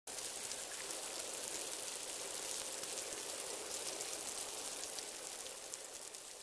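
Rain-like steady hiss with a fine crackle of drops, used as the sound bed of a channel logo intro; it starts abruptly and begins fading away near the end.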